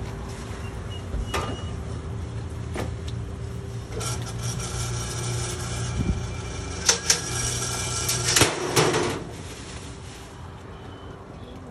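Chile roaster's rotating mesh drum running with a steady low hum. From about four seconds in come metallic squealing and sharp clanks as roasted green chiles tumble out of the drum, and these die down after about nine seconds.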